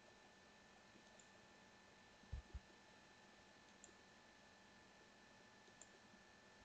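Near silence with a few faint computer-mouse clicks as edges are picked on screen, and two dull low thumps a little over two seconds in. A faint steady high-pitched hum sits underneath.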